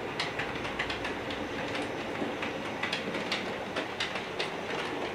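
Model railway train running on the layout's track: a steady running hum with irregular light clicks of the wheels passing over rail joints.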